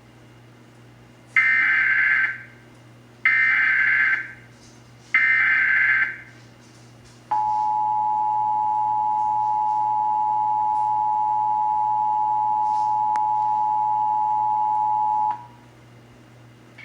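Emergency Alert System tones opening a required monthly test. Three short screeching bursts of SAME header data, each about a second long, are followed by the two-tone attention signal, a steady dual tone held for about eight seconds before it cuts off.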